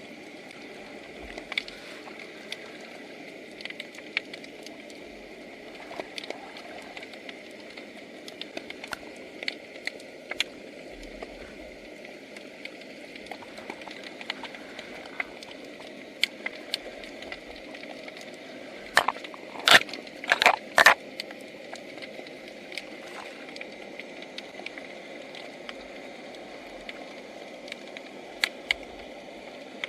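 Underwater crackling: irregular sharp clicks over a steady hiss, with a cluster of much louder clicks about two thirds of the way through.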